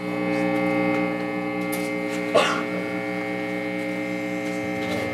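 A steady electric drone of several held tones from the band's amplified gear on stage, swelling up at the start and holding unchanged. A brief sharp knock cuts through about two and a half seconds in.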